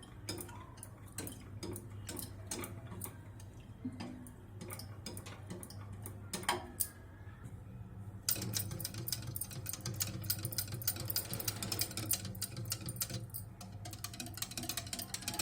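A spoon stirring thick gram-flour and buttermilk batter in a bowl, clicking against the bowl's side in a quick, steady rhythm. The strokes get faster and louder about eight seconds in.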